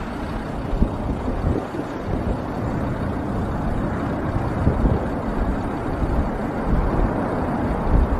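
Boeing B-52 Stratofortress's eight jet engines at takeoff thrust: a steady, deep rumble as the bomber rolls and lifts off.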